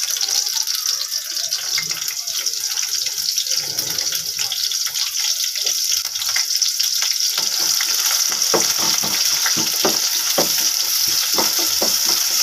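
Sliced onions sizzling in hot oil in a steel pot: a steady hiss with crackling pops that grow busier about halfway through.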